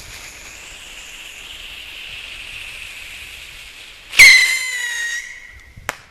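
A steady hiss for about four seconds, then a Texas Pop Rocket bottle rocket takes off with a loud whistle that sinks slightly in pitch for about a second and a half and ends in a sharp pop.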